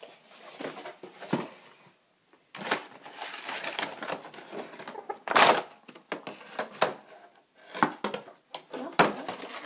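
Clear plastic packaging crackling and rustling in irregular bursts as it is handled and a toy figure is worked out of it. There is a brief pause about two seconds in, and the loudest crackle comes a little past the middle.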